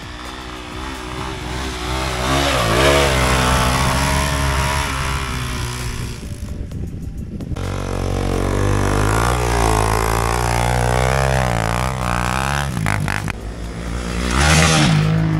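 Off-road motorcycle engines revving up and down with the throttle as the bikes climb a trail. The sound is loudest about three seconds in and again near the end, when a bike passes close.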